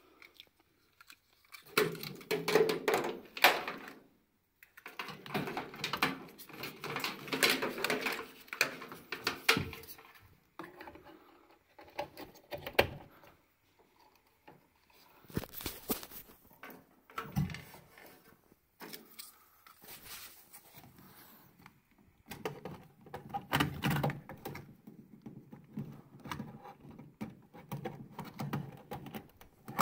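Clicks, knocks and rattles of the gas burner's cables and plug connectors being handled, in irregular bursts with short pauses.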